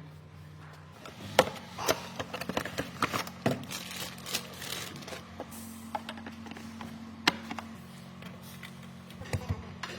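Scattered light clicks, taps and scrapes of tools and parts being handled, over a steady low hum.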